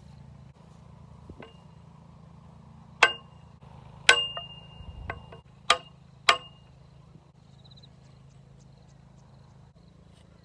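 Metal striking metal: four loud, sharp clangs that ring briefly, between about three and six and a half seconds in, with a few lighter knocks between them, over a steady low hum.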